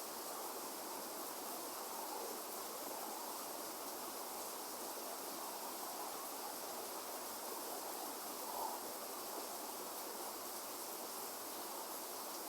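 Steady rain falling: an even hiss with no thunder, and one slightly louder tap about eight and a half seconds in.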